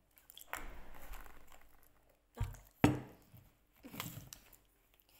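Wet mouth sounds of sucking and smacking at a tube candy: a soft noisy stretch, then two sharp knocks about two and a half seconds in, the second the loudest, and another short smacking burst near the end.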